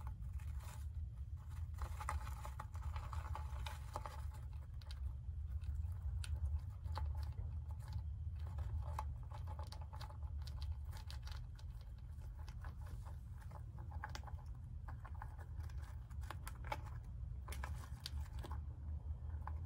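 Dwarf hamster chewing crunchy compound pellet food: quick, irregular small crunches and clicks, over a steady low hum.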